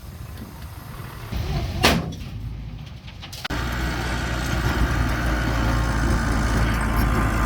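Diesel engine of earthmoving machinery running, with one sharp metallic clank about two seconds in. About three and a half seconds in the engine abruptly becomes louder and fuller and stays that way.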